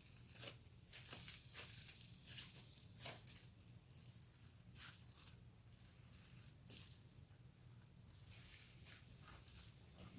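Faint, irregular crackling and squishing of foam slime, glue packed with beads, being kneaded by hand.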